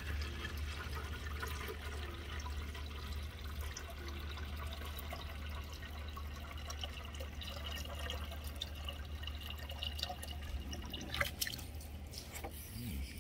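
Water running steadily into a plastic watering can as it fills, with a light knock about eleven seconds in.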